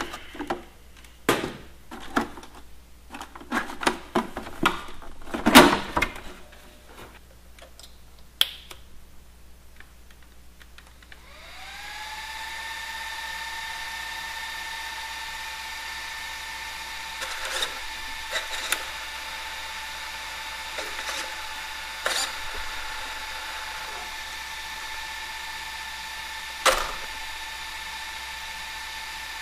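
Knocks and clatter from handling the truck, then about a third of the way in the small electric cooling fan on the Traxxas X-Maxx's speed control spins up with a rising whine and runs steadily with an airy hiss as the truck is powered on. A few light clicks sound over the fan.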